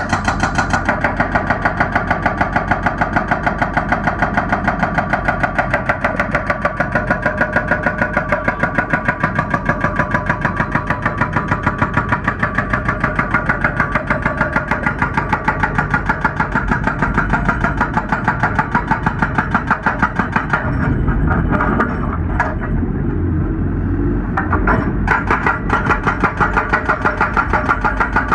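Excavator's hydraulic breaker hammering hard rock in rapid, even blows over the excavator's running engine. The hammering stops for a few seconds about two-thirds of the way through, leaving the engine and a few single knocks, then starts again.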